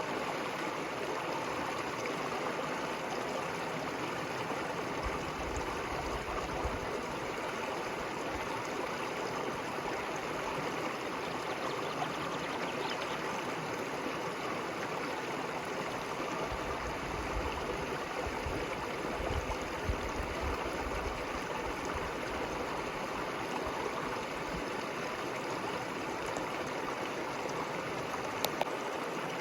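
River water flowing steadily, with a couple of faint clicks near the end.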